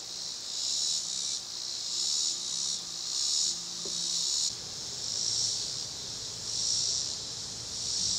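A high-pitched chorus of outdoor insects that swells and fades about once a second.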